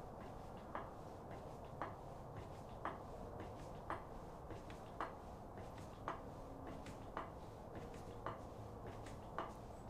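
Craftsman aluminum floor jack being pumped by its long handle to lift a car, a short click at each stroke about once a second.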